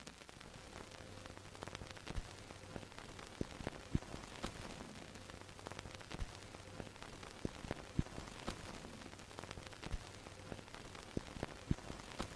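Faint old-film surface crackle: a steady hiss with irregular clicks and pops scattered through it, over a faint low hum.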